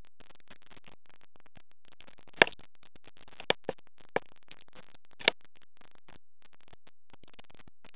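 Five short sharp clicks, made while someone tries to wake a sleeping cat, over a steady low hiss. They fall between about two and a half and five and a half seconds in, and the first is the loudest.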